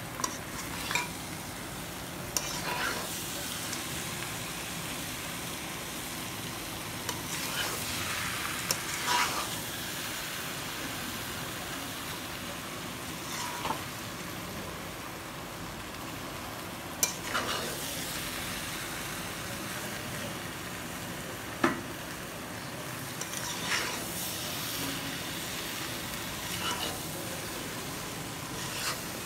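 Mutton and potatoes being stir-fried in spiced masala in a metal kadai (kosha mangsho being browned): a steady sizzle, with a metal spatula scraping and knocking against the pan every few seconds.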